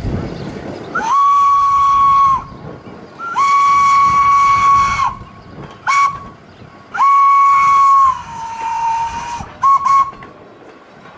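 Steam locomotive whistle blown in the road-crossing pattern: two long blasts, a short one, and a long one that sags in pitch as it ends, followed by two quick toots. The engine is a full-size green locomotive dressed as Percy, sounding for a level crossing.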